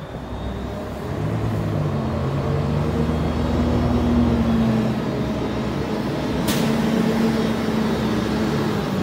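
Autocar front-loader garbage truck with a McNeilus body, its engine running as it drives slowly closer and grows louder. About two-thirds of the way through there is a short, sharp hiss of air.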